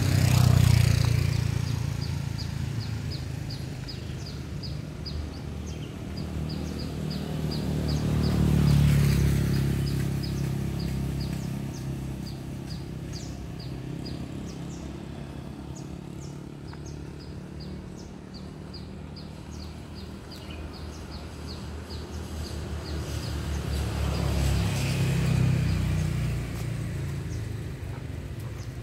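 Road vehicles passing one after another: three swells of engine and tyre noise rise and fade, at the start, about nine seconds in and about twenty-five seconds in. Through much of it a high chirp repeats about three times a second.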